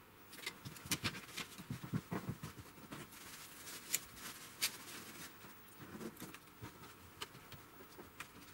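Irregular light clicks, taps and rustles of hands handling a TV's metal backlight tray and small parts on a workbench.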